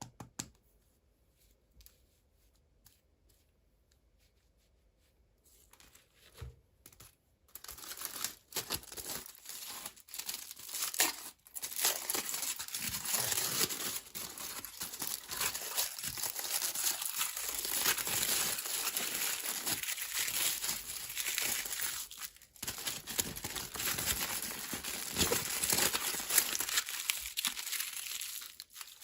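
Packaging wrapper being crinkled and torn open by hand, in dense crackling bursts. It starts quietly with a few small clicks and goes on steadily from about a quarter of the way in, with a brief pause near the end.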